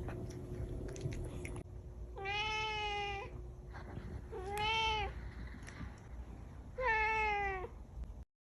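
A domestic cat meowing three times, each meow under about a second long, with a few light clicks before the first.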